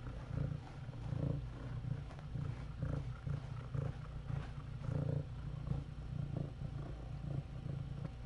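Cat purring close to the microphone. The purr is a steady low rumble that swells and fades with each breath, about once a second.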